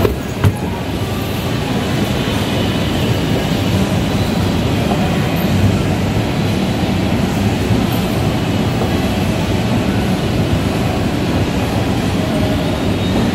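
Brand-new Pillar escalator running with a rider on it: a steady mechanical rumble from the moving steps and drive, with a couple of short knocks in the first half second.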